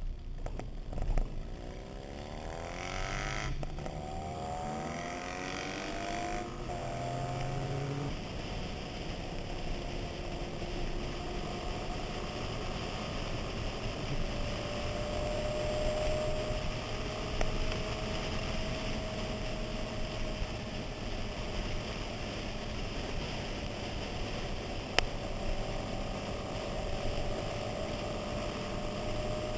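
Motorcycle engine pulling away from a stop, its pitch rising through the gears with two upshifts in the first eight seconds, then running steadily at cruising speed with wind rush over the microphone. A single sharp click near the end.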